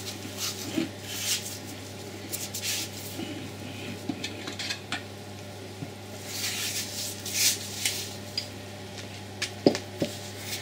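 Audi RS6 (C5) torque converter being worked off its shaft and slid out of the gearbox bell housing: metal scraping and clinking. Near the end come a few sharp knocks as it is set down on the floor.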